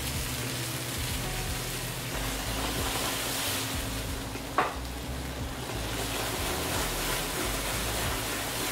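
Grouper fillets sizzling in a hot oiled frying pan over a gas burner, the pan flaring up in a flambé, with one sharp clack about four and a half seconds in.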